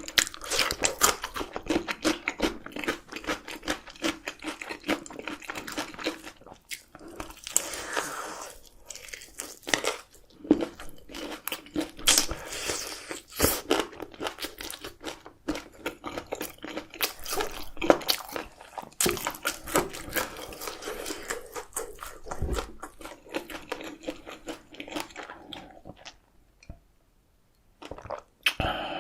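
Close-up eating: crunchy food being bitten and chewed, a dense run of crunches and wet mouth sounds. It stops for about two seconds near the end, then resumes.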